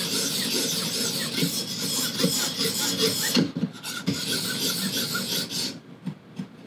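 Fine-grit sharpening stone on a KME guided-rod knife sharpener rubbed back and forth along a knife's edge bevel: light check strokes to see whether the set angle takes the marker ink off the whole bevel. The rasping runs for about three seconds, stops briefly, runs again for about two more, then fades near the end.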